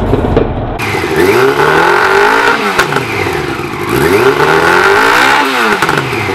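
Yamaha R1 inline-four sport bike engine revved up and back down twice through an Arrow aftermarket silencer, each rev rising and falling over about two seconds.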